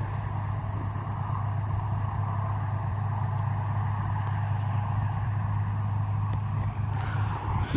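Diesel engine of harvest machinery running steadily at working speed, a constant low hum, with a brief rush of hiss about seven seconds in.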